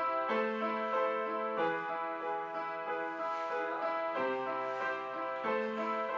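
Upright acoustic piano playing a slow melody over held chords, with a new chord struck every second or so.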